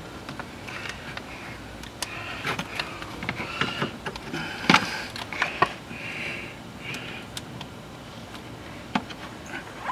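Scattered knocks, clicks and scraping as a plastic coolant degas bottle is unclipped and worked free of its mount in a truck's engine bay, with one sharp click about halfway through.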